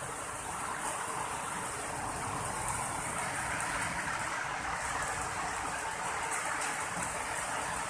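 Heavy rain pouring steadily, an even hiss with no letup.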